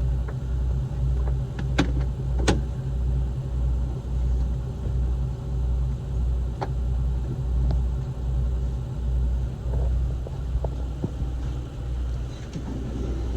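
Marine diesel engine idling aboard a motor yacht: a steady low rumble that throbs about once a second. A few sharp clicks or knocks sound over it, two of them about two seconds in.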